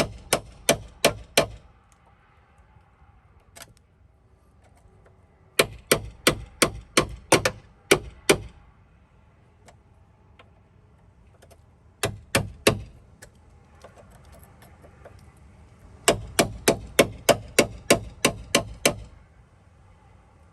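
A 4-pound hammer striking metal in runs of quick, ringing blows, about three a second, with short pauses between runs: hammering at a Jeep JK door hinge to drive out hinge liners that are seized by rust and corrosion.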